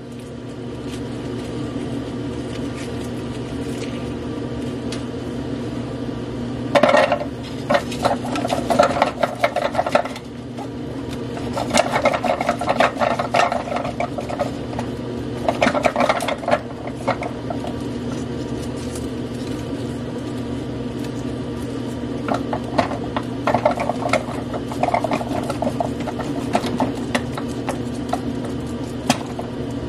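Brussels sprouts dropped by hand into a plastic food-processor bowl, knocking and rattling in several bursts of handling, with the rustle of their mesh bag, over a steady low hum.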